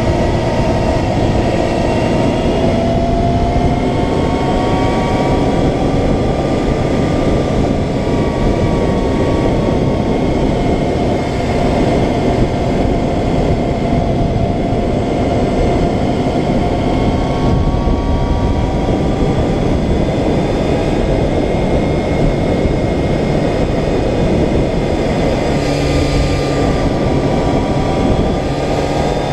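Yamaha FZR600R inline-four motorcycle engine running under way, its pitch rising and falling with the throttle and the gears, heard through heavy wind rumble on the camera microphone. Near the end the engine note settles lower and steadier.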